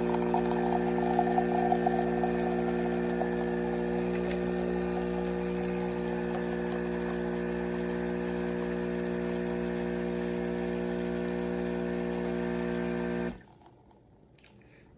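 Espresso machine's pump buzzing steadily while brewing a shot, with a light hiss of coffee running in the first few seconds. The buzz cuts off suddenly near the end as the brew cycle finishes.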